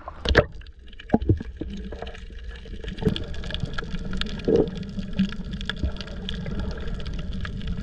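Underwater sound as the camera goes below the surface: a splash near the start, then a muffled low rumble of water under a dense crackle of small clicks, with a couple of brief gurgles.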